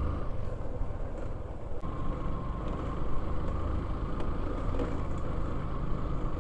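Motorcycle engine running steadily at low trail speed on a rough dirt track, heard from the bike's own handlebars, with a steady low rumble and a held tone that fades out about a second in and returns shortly after.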